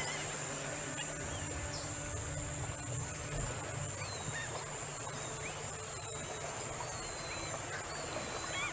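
Steady high-pitched insect trill, with short bird chirps scattered through it about once a second and a low hum underneath.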